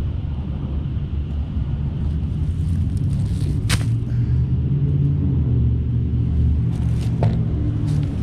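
Steady low rumble, like a motor running, with two brief sharp rustles, one a little before halfway and one near the end.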